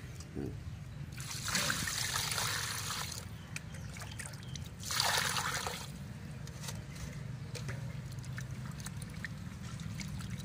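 Water poured from a plastic bucket into a steel bowl of cut goat intestine pieces, in two pours: one about a second in lasting two seconds, and a shorter, louder one about five seconds in. After that, hands slosh and rub the pieces in the water.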